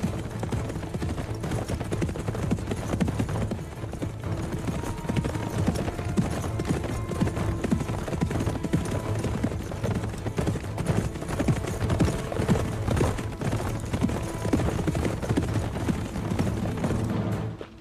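Horse hoofbeats: a ridden horse moving fast along a dirt path, a dense, irregular run of hoof strikes, with background music underneath. Both cut off sharply just before the end.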